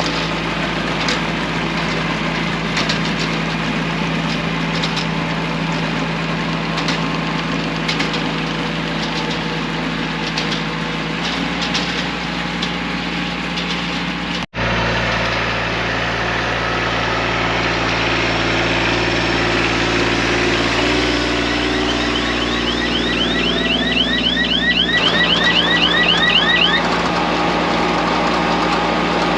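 Kubota compact tractor's diesel engine running steadily while it pulls a wheel hay rake. The sound drops out abruptly for a moment a little past halfway, and a rapid run of high chirps, about four or five a second, comes in for a few seconds near the end.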